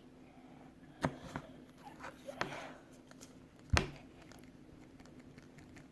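Very sticky slime being handled: a few short clicks and pops as it is pressed and pulled apart, the loudest about four seconds in.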